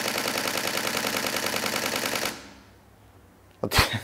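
Nikon D500 DSLR shutter firing a continuous high-speed burst, about ten frames a second at an even rate that does not slow while it writes to a fast XQD card, stopping about two seconds in. A man laughs briefly near the end.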